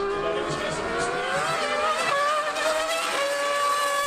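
A Mercedes Formula One car and a Yamaha R1M superbike running hard together at high revs, with several engine notes whose pitch rises and falls.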